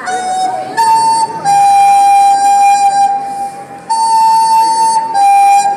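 Flute playing a slow phrase of a few long held notes, stepping up and down between them, the longest held for over two seconds in the middle.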